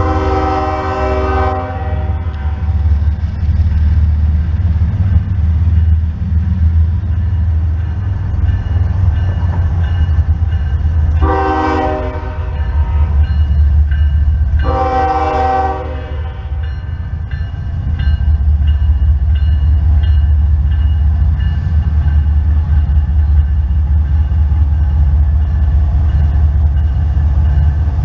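Diesel freight locomotive air horn sounding three blasts: one ending about a second and a half in, then two more of about a second each around the middle. Under them runs the steady low rumble of the approaching train.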